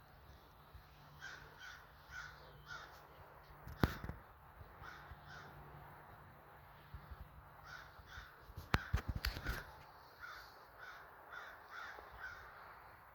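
A bird calling in runs of short repeated calls, about two a second, with pauses between the runs. A low steady hum stops about eight seconds in, and a few sharp clicks sound near the middle and two-thirds through.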